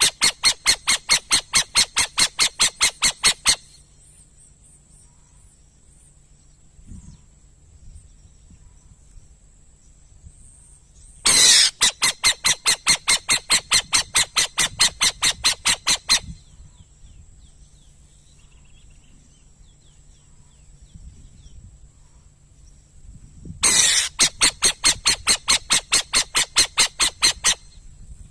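Burrowing owl calling in three bouts of rapid chattering, each opening with a harsh loud note and then about four sharp notes a second for four to five seconds. The bouts start just before the beginning, about eleven seconds in and near the end.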